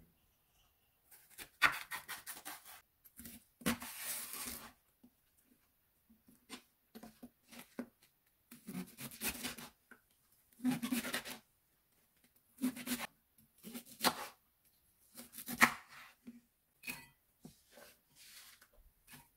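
Kitchen knife slicing leek on a wooden cutting board: short runs of quick, crisp cuts, each one knocking on the board, with pauses between the runs.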